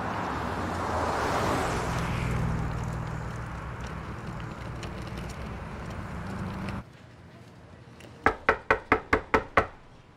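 Road traffic running, swelling as a vehicle passes about a second in, with a low engine hum, then cutting off suddenly. Near the end, a fist knocks on a door seven times in quick succession, about five knocks a second.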